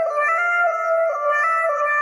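Music: a melody of held notes stepping up and down in pitch, with a flute-like tone.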